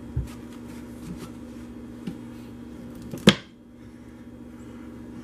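Wooden wire soap cutter: a few soft knocks as the soap loaf is pushed along its base, then about three seconds in one sharp knock as the cutting arm is brought down through the loaf onto the frame.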